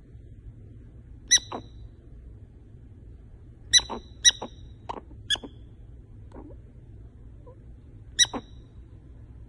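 Sleeping prairie dog squeaking in her sleep: short, sharp, high squeaks, often two in quick succession. A pair comes about a second and a half in, a cluster of four or five between about four and five and a half seconds, and another pair near the end.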